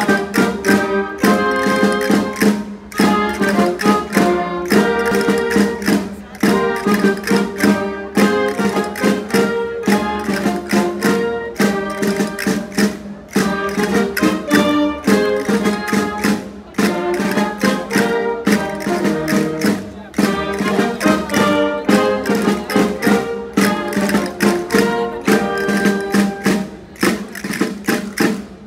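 Folk dance music: a lively tune over a quick, steady beat, with a low note held underneath.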